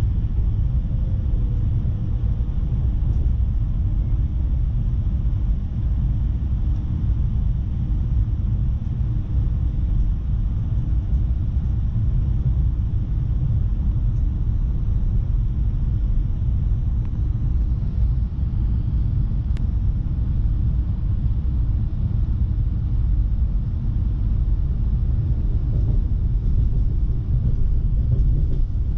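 Steady low rumble of an ES2G Lastochka (Siemens Desiro RUS) electric multiple unit in motion, heard from inside the passenger cabin, with a faint steady hum over it.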